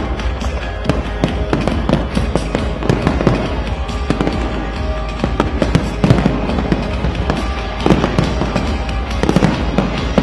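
Large fireworks display: many shells bursting at once in rapid, overlapping bangs and crackles, with music playing underneath.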